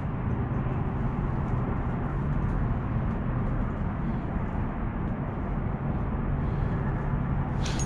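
Steady wind noise buffeting the microphone, with a faint steady low hum underneath.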